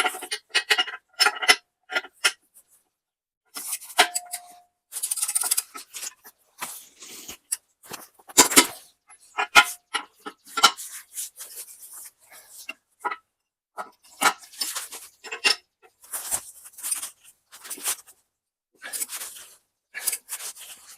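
Hand-tool work on a steel stump grinder: irregular short rasps, clicks and metal clinks, one after another with brief pauses.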